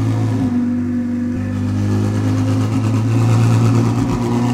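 Ferrari 488 Challenge race car's twin-turbo V8 engine running steadily at low revs as the car creeps into the garage.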